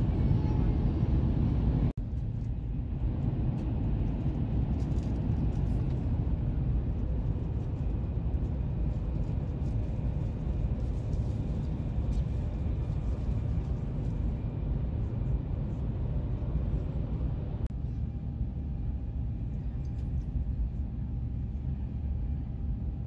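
Steady low rumble of a moving vehicle heard from inside, with a brief dropout about two seconds in and a duller tone from about eighteen seconds on.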